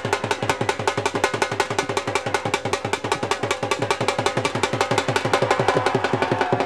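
Fast, steady dhol drumming, about eight strokes a second, with low booming strokes that drop in pitch under sharper high strokes.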